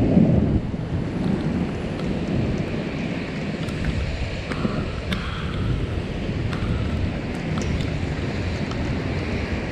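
Thunder rumbling, loudest in the first half-second and then settling to a lower, steady rumble, mixed with wind noise on the microphone and a few faint scattered ticks.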